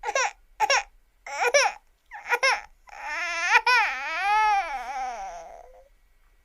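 Cartoon crying sound effect of the desk-lamp character Luxo Jr.: four short sobs about a second apart, then one long wavering wail that sinks in pitch and fades out.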